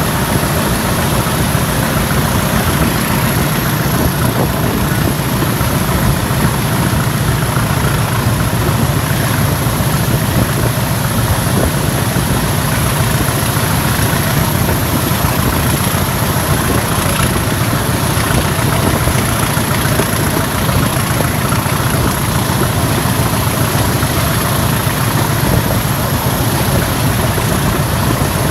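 Diesel-hauled heritage train running steadily, heard from an open carriage window: a constant low drone of the diesel locomotive's engine blended with the train's running noise.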